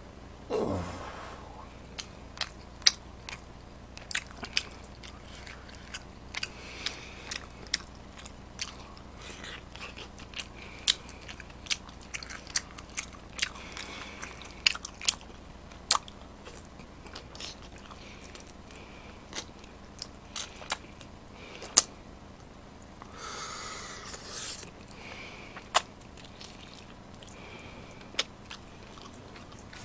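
Close-miked eating: a person chewing and biting food, with sharp wet mouth clicks and smacks at irregular intervals and occasional crunches. A short breathy rush comes a little after two-thirds through.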